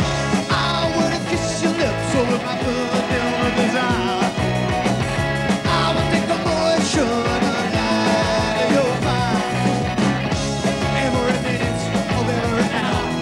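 Live punk/new wave rock band playing a song at full volume: electric guitar over a drum kit.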